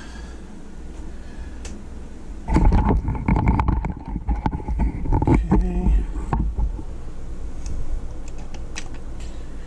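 Camera and its microphone being handled and bumped: a burst of rubbing rumble and clicks starting about two and a half seconds in and lasting about four seconds, then a few light ticks.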